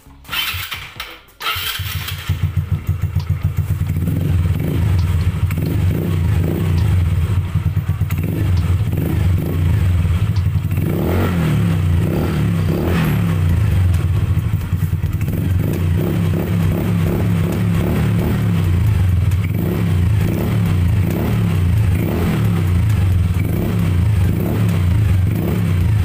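Yamaha Mio Sporty scooter's single-cylinder four-stroke engine starts about a second and a half in and runs through an aftermarket MTRT EVO 2 exhaust pipe, with a steady pulsing idle. The throttle is blipped a couple of times near the middle. The note is full and smooth.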